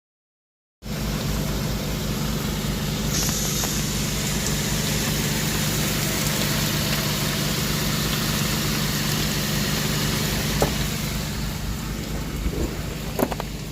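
2012 Infiniti G37's 3.7-litre V6 engine idling steadily, coming in abruptly about a second in, with a couple of light clicks near the end.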